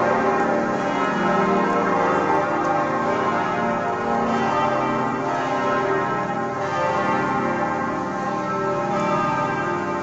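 Church bells of the Kaiser Wilhelm Memorial Church ringing together in a continuous peal, many bell tones overlapping and sustained without a break.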